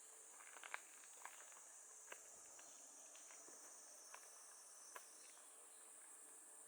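Faint footsteps on a forest path, a soft step every second or so, over a steady high drone of insects, which the title names as cicadas.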